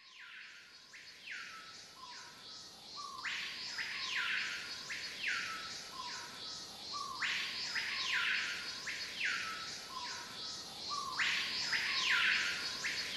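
Background music: a looped electronic tune of chirpy tones that fall in pitch over a lower held note, repeating the same pattern about every four seconds and fading in at the start.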